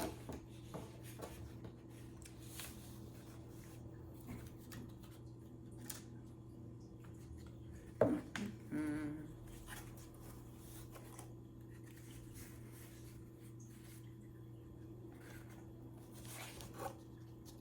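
Faint handling of cardboard panels: light taps, scrapes and rustles as the pieces are fitted together, with one louder knock about halfway through, over a steady low hum.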